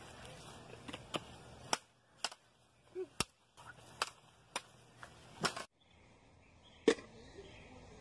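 Irregular sharp clacks, about nine of them, of plastic toy lightsabers striking each other in a mock duel.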